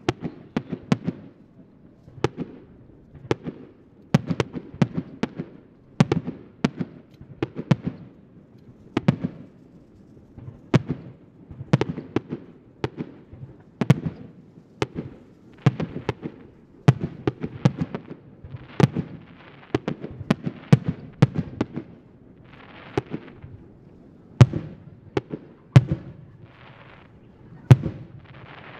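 Aerial firework shells bursting in an irregular run of sharp booms, often one or two a second.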